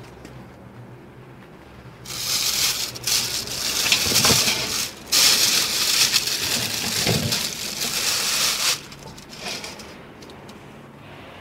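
Plastic wrapping crinkling and rustling loudly for about seven seconds, with a short break halfway, as a freshly pressed cocoa cake is handled in a steel bowl. A low machine hum sounds at the start.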